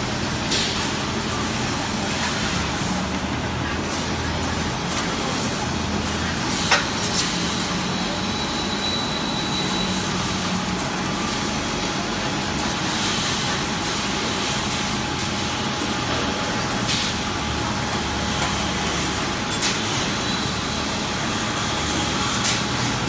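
Steel-mesh welding machine running in a factory: steady machinery noise with a low hum, broken by a handful of sharp clicks.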